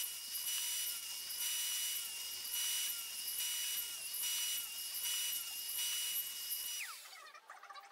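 Radial arm saw with a stacked dado set running, cutting a recess into a pressure-treated 4x4 in repeated passes: a steady high motor whine, with the cutting noise swelling and easing about once a second. Near the end the saw is switched off and the whine drops away as it spins down.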